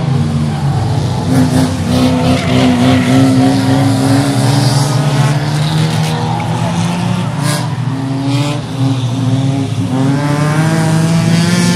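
Several 1600 cc banger racing cars running around a short oval track, their engines overlapping and rising and falling in pitch as they accelerate and pass.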